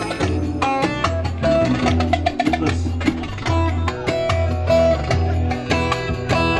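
Instrumental Turkish folk dance music played live: a bağlama (saz) picks a quick melody over a pulsing keyboard bass line and percussion.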